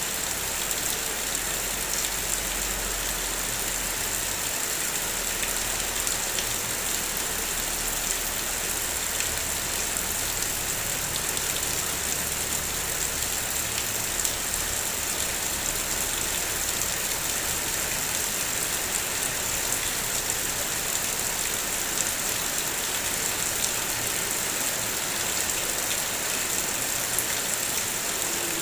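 Heavy rain falling steadily on a car's body: a dense, even hiss with scattered sharp drop ticks. A low engine-like rumble sits underneath for about the first twelve seconds, then fades out.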